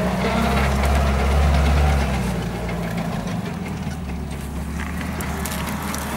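Engine of a Soviet 4x4 off-roader running under load as it drives through deep mud, louder in the first two seconds and then easing to a lower, steady drone.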